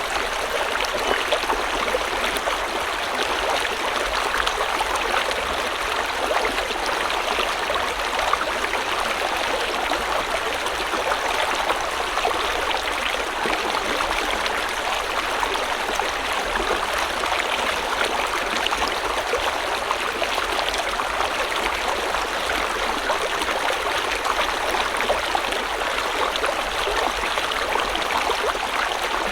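River water flowing and splashing over rocks: a steady rush with many small splashes and gurgles, even throughout.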